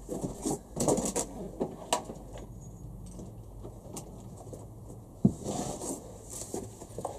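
Scattered clicks, rattles and rustling of tools being rummaged through to fetch a small screwdriver, with one sharp knock about five seconds in.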